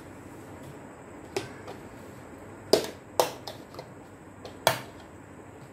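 Handling noise on a workbench: four sharp knocks and clicks of hard objects being picked up and set down, spread over a few seconds, the loudest near the middle.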